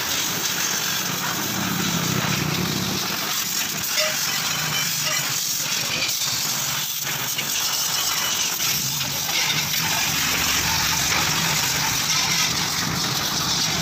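Pressure washer running, its high-pressure water jet hissing steadily and spattering against a vehicle's wheel arch, bumper and tyre as it blasts off caked mud.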